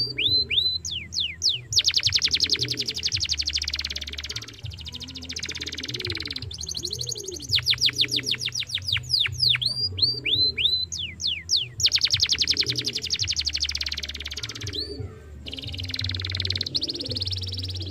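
Young domestic canary singing continuously. Its song alternates between runs of quick downward-sweeping whistles, very fast trills and buzzy rolled phrases.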